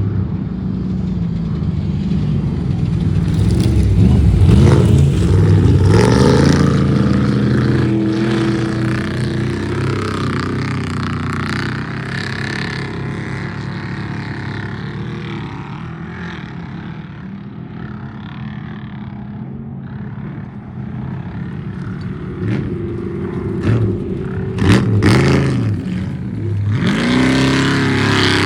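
Off-road race vehicle engines running hard and revving, the pitch rising and falling as they accelerate and let off, loudest about four to six seconds in and again near the end.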